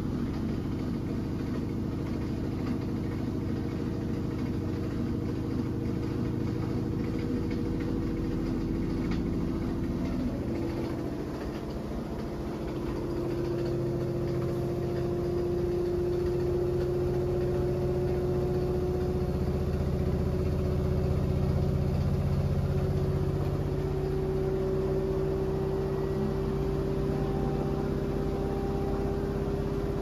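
Front-loading washing machine spinning up toward full spin speed: a steady motor and drum hum whose tone slowly rises in pitch as the drum speeds up, with a brief dip in loudness about eleven seconds in.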